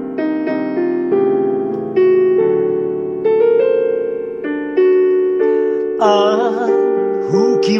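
Piano playing an instrumental interlude, notes and chords struck one after another and fading. About six seconds in, a man's voice comes in over it, singing a long wavering 'Ah'.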